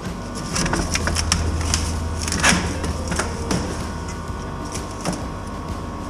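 Scattered clicks, knocks and light crackling from tools and a sheet-metal vent pipe being handled, the sharpest knock about halfway through, over a steady low hum that eases off after about four seconds.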